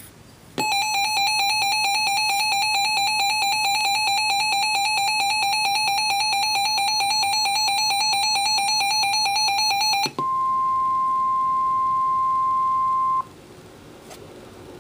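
Weather radio emergency alert: a loud electronic alarm beeps rapidly and steadily for about nine seconds. It switches to a single steady NOAA Weather Radio warning alarm tone for about three seconds, which cuts off abruptly and leaves faint radio hiss. It signals an incoming severe thunderstorm warning.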